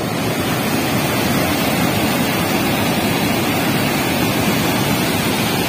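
Floodwater rushing out through the dam's open spillway gates: a loud, steady roar of falling water.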